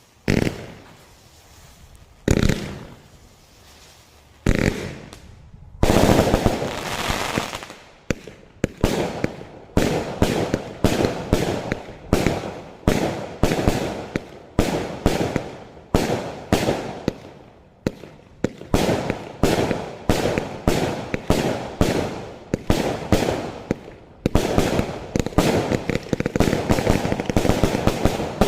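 A 276-shot firework cake firing. A few single shots come a couple of seconds apart, then a dense crackling volley, then a steady run of shots at roughly two a second, and near the end a thick, continuous barrage.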